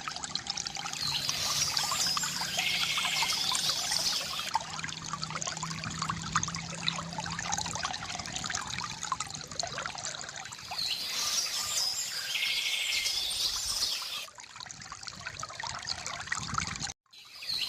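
Water trickling and pouring steadily from a bamboo fountain, with a songbird singing a short phrase twice, about a second in and again around eleven seconds. The sound cuts out for an instant near the end.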